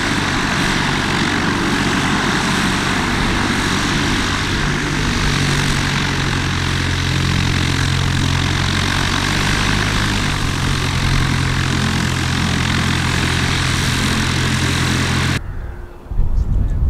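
Grumman AA-5 light single-engine propeller aircraft with its engine running steadily close by, the note stepping up slightly about five seconds in. The sound cuts off abruptly about a second and a half before the end.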